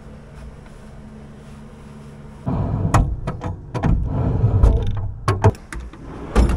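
A steady low hum, then from about two and a half seconds in, irregular knocks, clunks and rubbing of handling in the carpeted storage compartments of a ute canopy.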